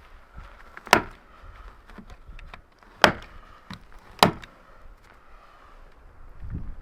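Three sharp knocks, like blows on wood: one about a second in, then two more about two seconds and a second apart, with a few lighter taps between.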